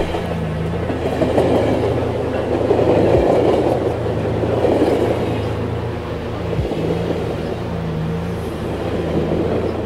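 A train rolling on rails, its rumble swelling to a peak about three to five seconds in and then easing off, over a low steady drone.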